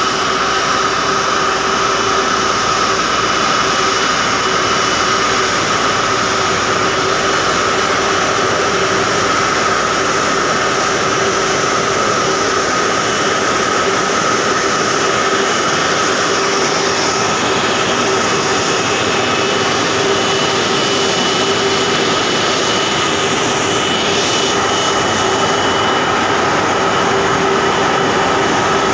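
Airbus A330's twin jet engines running at low taxi power as the airliner rolls slowly onto its parking stand: a steady loud rush with a steady high whine.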